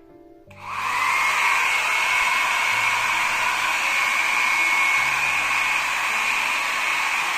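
A 1200-watt Myria hair dryer switched on about half a second in. Its fan spins up with a whine that rises to a steady high tone over a loud rush of air, and then it runs steadily.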